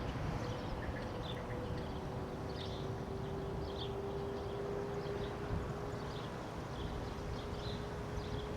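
Outdoor ambience: a steady low rumble under a faint held hum, with scattered short, faint high chirps.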